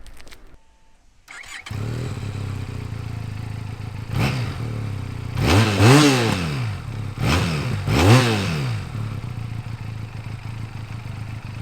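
Benelli Leoncino Trail 500's parallel-twin engine with its stock exhaust starts just over a second in and settles into a steady idle. It is then blipped four times, the second and fourth revs the loudest, before dropping back to idle. Much of what is heard is mechanical engine noise rather than exhaust note, in the owner's view.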